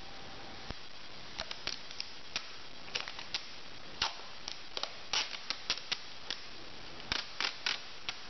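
Cardboard shipping box being folded and assembled by hand: scattered, irregular sharp cardboard clicks, creases and rustles.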